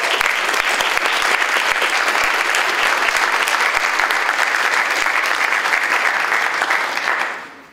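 Audience applauding in a lecture hall, steady and loud, then dying away over the last second or so.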